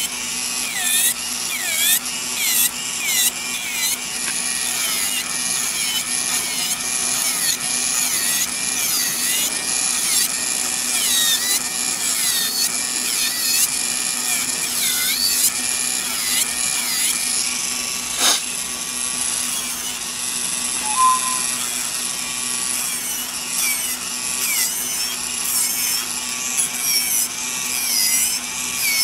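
Electric nail drill with a carbide bit, running at its lowest speed and filing product off a fingernail. A steady motor hum sits under a high whine that wavers up and down as the bit presses on and eases off the nail.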